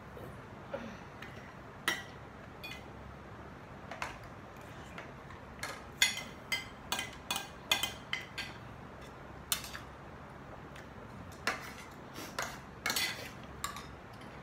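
Metal spoons and forks clinking and scraping on plates and bowls as people eat, in scattered sharp taps that come thicker about halfway through and again near the end.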